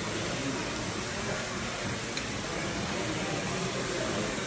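A steady, even hiss that does not change in level.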